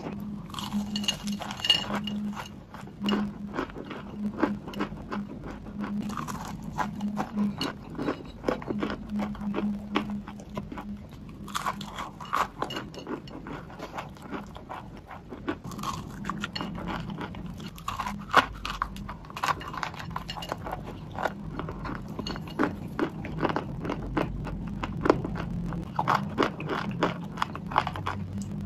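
Dry grey clay chunks being bitten and chewed: a continuous, irregular run of sharp crunches and crackles, with denser clusters of crunching at several points.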